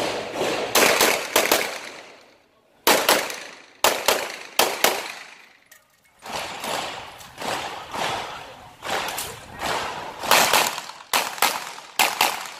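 Pistol shots fired in quick pairs and short strings during an IPSC handgun stage, each shot sharp and echoing. A pause comes in the middle while the shooter moves, then a faster run of about six shots near the end.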